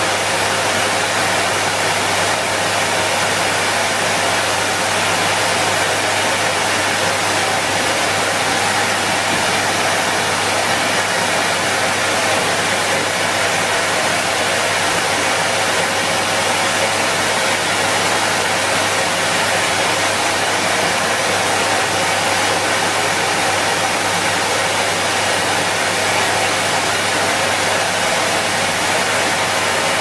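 Henry canister vacuum cleaner running steadily: an even rush of air over a constant low motor hum, with no change in speed.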